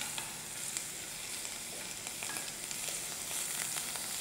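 Spice masala with ginger paste sizzling in hot oil in a pan, stirred with a wooden spatula, a steady sizzle flecked with small crackles. The masala is being fried (bhuna) as the base of a curry.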